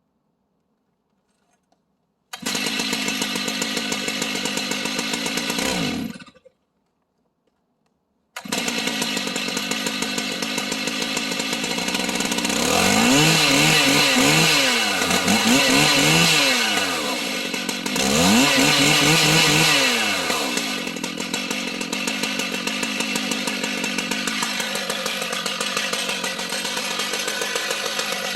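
Stihl MS 880 two-stroke chainsaw running on an Alaskan mill. It starts about two seconds in, dies away at about six seconds, and comes back about two seconds later, running louder with its revs swinging up and down in the middle before settling to a steadier run.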